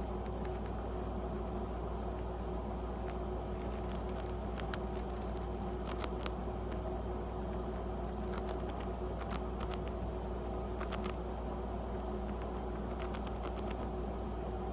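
A pet rat nibbling a cracker: small crisp crunches at irregular intervals, some in quick pairs, over a steady low hum.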